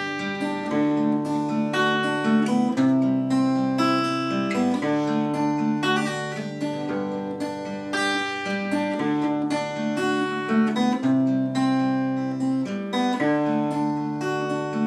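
Acoustic guitar fingerpicked, arpeggiating chords (G and D among them) with the bass note changing every second or two and the plucked notes ringing over each other.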